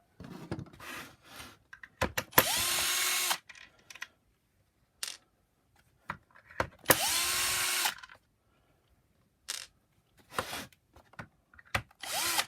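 A cordless electric screwdriver with a T15 Torx bit undoing the screws of a Shark power nozzle's plastic housing. Its motor spins up with a rising whine that levels off and runs for about a second, twice, and starts again near the end. Short clicks and knocks of plastic being handled come in between.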